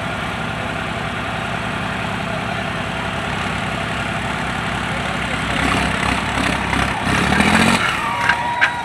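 A heavy vehicle's engine running steadily, growing louder about two-thirds of the way in, with a brief rise in pitch near the end.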